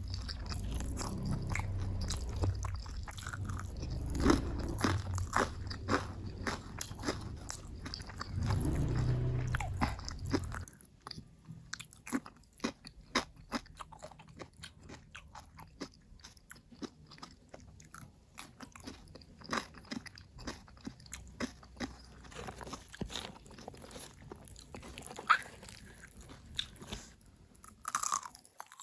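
Close-miked eating: a person chewing and biting food, with many short crisp crunches and mouth clicks. A low steady hum sits under the first ten seconds or so and stops suddenly, after which the chewing clicks go on more quietly.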